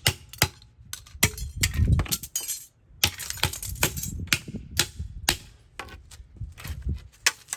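Plastic 35mm film cameras being smashed: a quick, irregular run of hard knocks and cracks with small broken pieces clinking, pausing briefly about two and a half seconds in.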